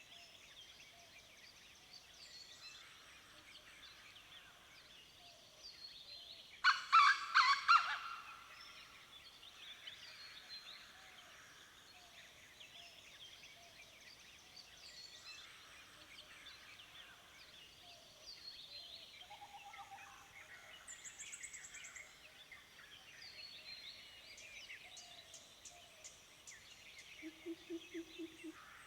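Dawn chorus of many wild birds, with overlapping chirps, trills and whistles throughout. About seven seconds in, one much louder, rapid pulsing call lasts a little over a second, and a short low pulsed call comes near the end.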